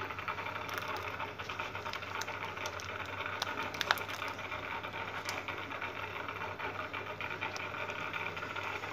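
Steady hum of an aquarium pump running, with faint scattered clicks and light plastic handling noise.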